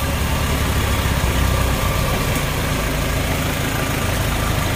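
Off-road 4x4's engine running steadily at a low idle-like rumble.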